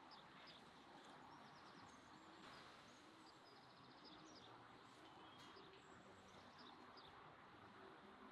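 Near silence: a faint even hiss with scattered faint bird chirps and a couple of short bird trills.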